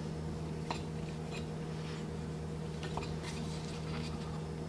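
A few faint clicks and light taps of small metal air fittings handled at a compressor's regulator, over a steady low hum.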